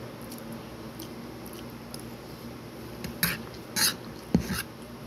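Person eating a forkful of fried rice close to the microphone. Faint mouth clicks at first, then a few loud, wet chewing smacks in the second half, with a single low thump among them.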